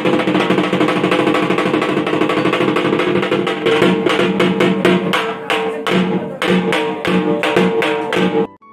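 Dhak, the Bengali barrel drum, beaten fast with two thin cane sticks in a dense rolling puja rhythm, the strokes becoming more spaced and accented in the second half. It cuts off suddenly near the end.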